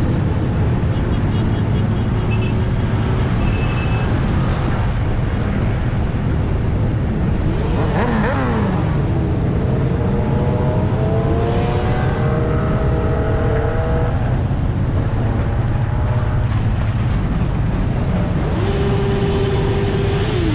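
Steady road and engine noise of a car driving. An engine note falls away about eight seconds in and again at the very end, and climbs for several seconds in the middle as a vehicle accelerates.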